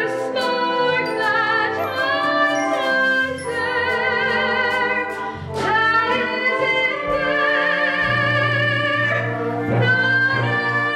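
A female voice singing a musical-theatre song in held notes with wide vibrato, over live instrumental accompaniment.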